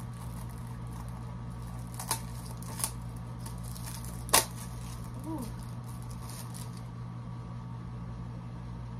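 A few sharp clicks and taps from handling a plastic eyelash tray and its packaging, the loudest about four seconds in, over a steady low hum in the room.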